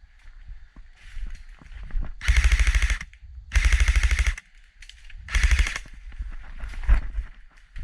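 Airsoft rifle firing three bursts of full-auto, each under a second long, a rapid mechanical rattle of shots. A single sharp knock follows near the end.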